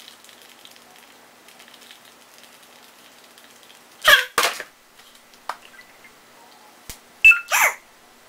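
A teenage boy's short, loud wordless yells: two about four seconds in and two more near the end, with a few sharp clicks between them.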